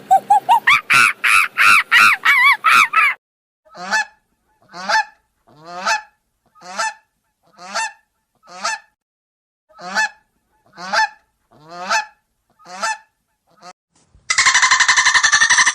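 Goose honking: a fast run of calls for about three seconds, then about ten separate honks roughly one a second. Near the end a different loud, harsh, continuous sound cuts in.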